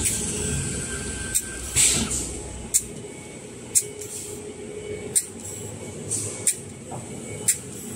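Toilet-roll production line (rewinding and embossing machine) running with a steady mechanical hum and a faint high whine. A sharp click comes roughly every second and a quarter, about six in all, with a short hiss about two seconds in.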